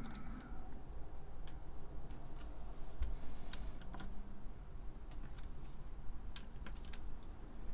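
Light, irregular clicks and ticks of a small hand screwdriver turning the case screws a little beyond finger tight, as hands steady the acrylic front-panel assembly.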